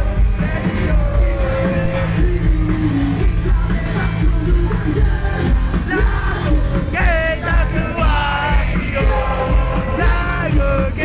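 Rock band playing a song with singing on top; the singing comes in stronger about seven seconds in.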